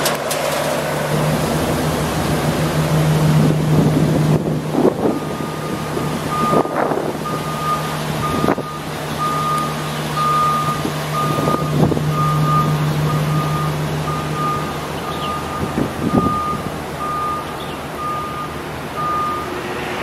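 A vehicle backup alarm beeps over and over from about five seconds in. Under it runs a steady low hum that stops about three-quarters of the way through, with a few scattered knocks.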